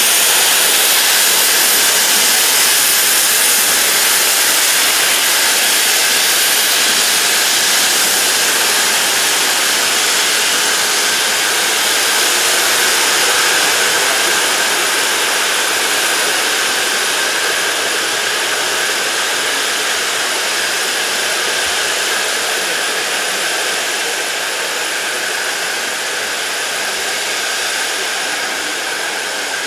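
Steam tank locomotive hissing steam in a loud, steady rush that slowly fades.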